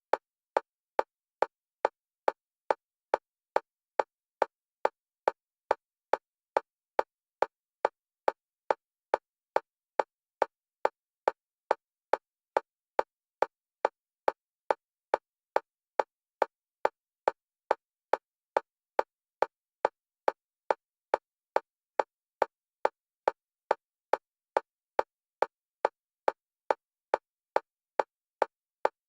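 Electronic metronome clicks, all at one pitch, about two a second and perfectly even, alternating between left and right stereo channels as an EMDR bilateral-stimulation track.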